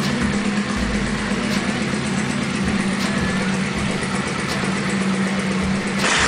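Honda Shadow 600's V-twin engine idling steadily through an aftermarket Roncar exhaust with a baffle fitted. A brief louder rush of noise near the end.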